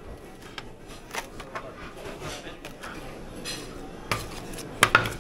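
Metal bench scraper and spatula scraping and clinking against a metal candy table while a slab of hot poured candy is worked. The clinks come at irregular moments, and the loudest come a little after four seconds and just before the end.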